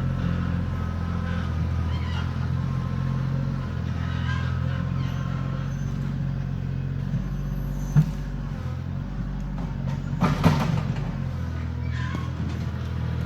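Kioti CK2610 tractor's diesel engine running steadily, with a single sharp knock about eight seconds in and a brief louder, noisy burst about two seconds later.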